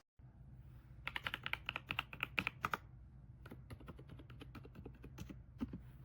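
Typing on an RK Royal Kludge S98 mechanical keyboard with pale green tactile switches and PBT keycaps. A quick run of keystrokes about a second in lasts roughly two seconds, then comes a slower scatter of single keypresses.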